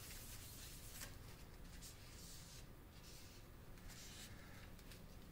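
Faint rubbing and scratching as old thermal paste is wiped off a GTX 460's GPU chip.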